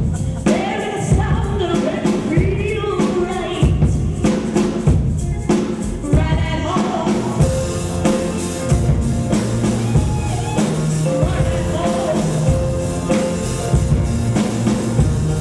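Live gospel-style song: voices singing over a band with a steady drum-kit beat, the singing giving way about halfway to the band playing on with held notes.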